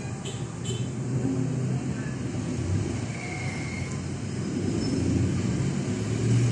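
Street traffic: vehicle engines running past in a steady low rumble, growing louder near the end as a jeepney passes close by.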